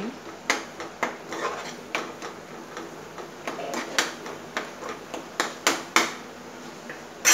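Spatula stirring a thick tomato-onion masala in a nonstick frying pan: irregular scrapes and knocks against the pan, about two a second with short pauses, and a louder knock right at the end.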